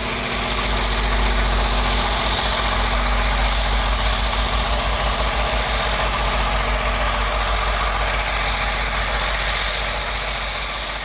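Diesel locomotives pushing a Union Pacific rotary snowplow pass close by: a steady, heavy, pulsing engine rumble under a loud rushing hiss of blown snow. The sound eases off a little near the end.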